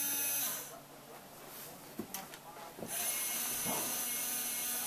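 Small electric motors of a scratch-built model crane running with a steady whine. The whine stops about half a second in, a few light clicks follow, and it starts again about three seconds in.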